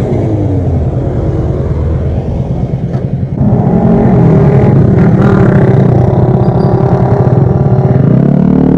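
Yamaha Mio Sporty scooter's single-cylinder engine running through a Sun Racing Cobra exhaust with its silencer removed. It gets suddenly louder about three and a half seconds in as the throttle opens, and stays loud.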